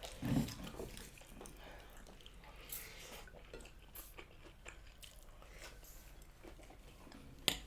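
Close-miked eating sounds: chewing with faint mouth clicks and crackles, and one sharper click near the end. A brief low hum at the very start.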